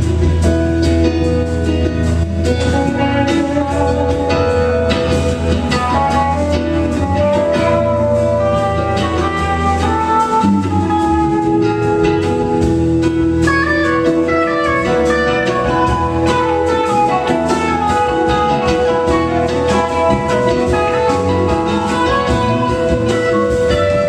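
Live rock band playing an instrumental jam without vocals: electric guitar lead lines over bass, drum kit and keyboards.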